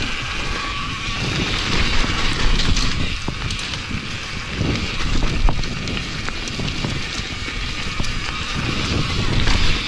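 Mountain bike riding along a dirt singletrack, heard from a camera on the bike or rider: steady wind rush on the microphone over a low rumble, with scattered rattling knocks as the tyres and frame go over bumps.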